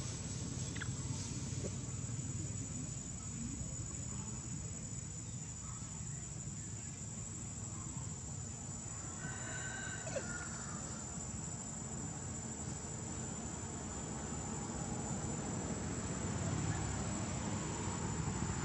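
Steady insect drone over a low, even hum, with a short faint squeal about ten seconds in.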